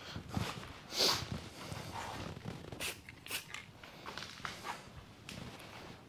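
Footsteps and light handling knocks as a person moves about and picks up an aerosol spray-paint can, with a short breathy hiss about a second in.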